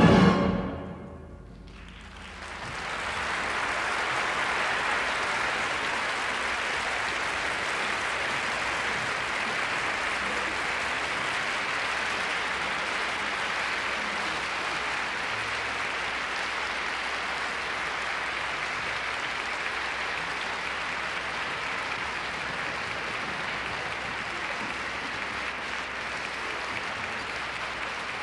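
An orchestra's final chord cuts off right at the start, and after a brief lull a concert audience breaks into steady applause. It comes through an off-air radio recording on cassette, with a slight tape hiss.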